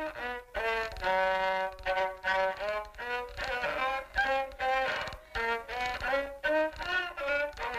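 A violin playing a tune of short, separate notes with brief gaps between them.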